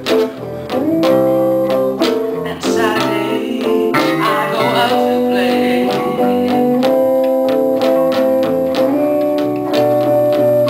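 Live blues band playing a slow blues on guitars: held lead notes ring over a bass line and struck chords, with no singing.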